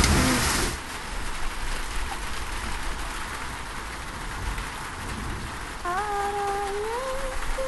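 Heavy rain, loud at first, dropping to a softer steady rain less than a second in. Near the end a single soft melody begins, sliding between a few held notes.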